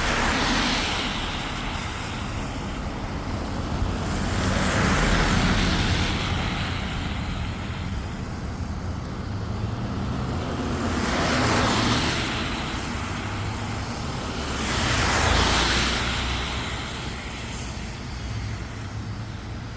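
Cars passing on a road, one after another: about four passes, each rising and fading, over a steady low traffic rumble.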